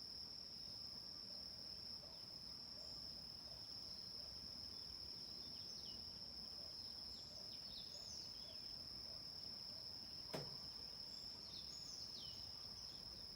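Steady, unbroken high-pitched insect trilling, typical of crickets, with a few faint short falling bird chirps in two small clusters. One sharp click about ten seconds in.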